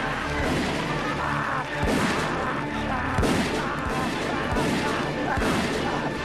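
Background music: sustained low notes, then from about two seconds in a steady beat of heavy drum hits, about three every two seconds.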